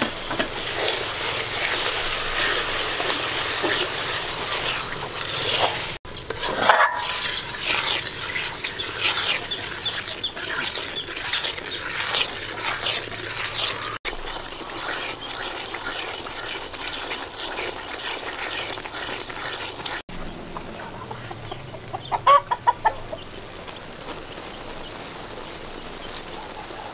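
A white liquid mixture bubbling and crackling in an aluminium wok over a fire as a metal ladle stirs it. Chickens cluck in the background, with a quick run of clucks about 22 seconds in.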